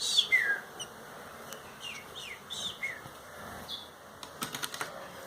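Caged songbirds giving short, quick chirps that slide downward in pitch, about eight of them, with a few sharp clicks near the end.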